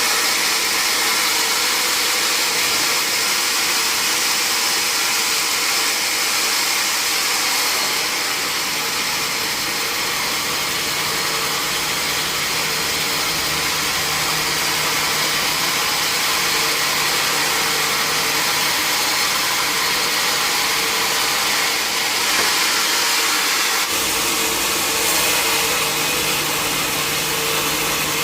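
Sawmill machinery running steadily: a loud, even, hissing machine noise with a held hum. A deeper hum joins about ten seconds in.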